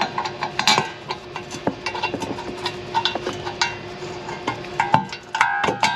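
Light metallic clinks and taps of hub bolts and tools being handled as the new wheel hub's mounting bolts are started by hand, with a steady faint hum underneath. Near the end a couple of clinks ring briefly.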